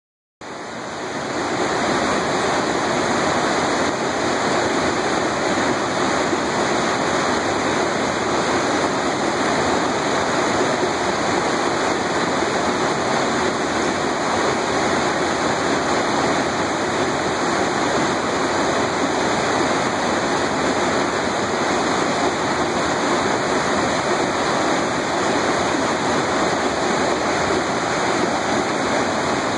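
A mountain stream rushing over rocks: a steady, even rush of water that fades in over the first couple of seconds and then holds without change.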